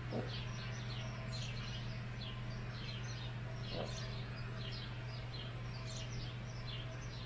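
Small birds chirping over and over in short, quick, falling chirps, over a steady low electrical hum.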